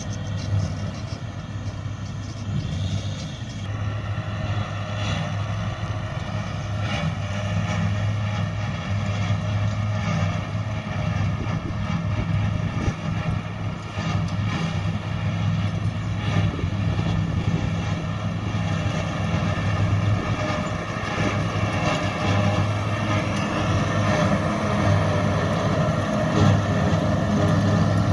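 Claas Jaguar 870 self-propelled forage harvester running under load as it chops grass for silage and blows it into a trailer, with a John Deere tractor running alongside; a steady engine drone that grows louder as the machines come closer.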